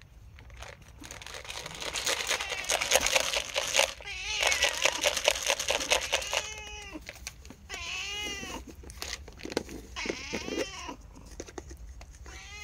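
Orange tabby cat meowing several times in the second half, each call rising then falling in pitch, begging for food. Before the meows, a loud, scratchy rustling close to the microphone.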